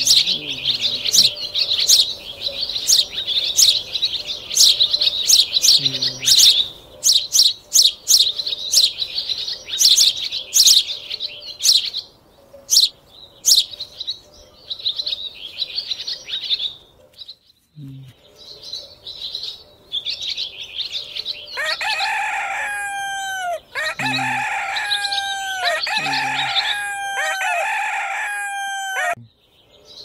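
Small birds chirping in quick, high runs through the first half. In the second half come four drawn-out calls in a row, each sliding down in pitch at its end.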